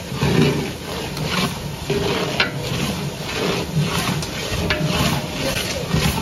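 A metal ladle stirring chopped onions and tomatoes in a large aluminium cooking pot, scraping against the pot in repeated strokes about twice a second.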